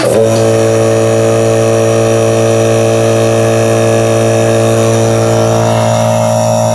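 VEVOR 8-gallon, 1 HP oil-free air compressor switching on abruptly and running steadily, its motor and piston pump filling the tank.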